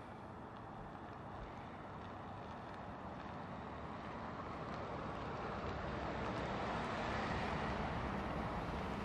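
Rushing noise of a vehicle passing, growing gradually louder.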